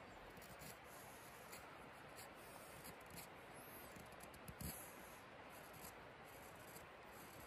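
Faint scraping of a Morakniv carbon-steel knife shaving dry pear wood between a fork's tines, in short strokes over a steady hiss, with a soft thump about four and a half seconds in.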